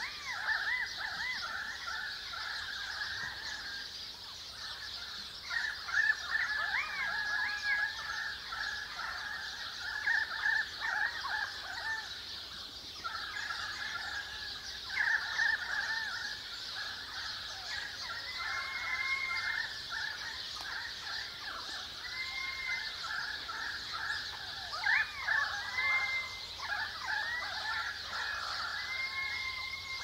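Currawongs and sparrows calling, many quick overlapping chirps rising and falling without a break, with a few short clear two-note calls in the second half. A steady high hiss runs underneath.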